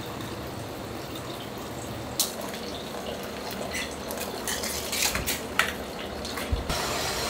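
Ramen-kitchen work sounds: a steady rush of water, with scattered clinks and knocks of bowls and utensils starting about two seconds in.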